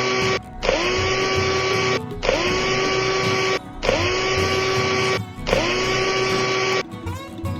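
A loud mechanical whirring sound effect repeating in bursts of about a second and a half with short breaks, the pitch rising at the start of each burst. It stops near the end and quieter music takes over.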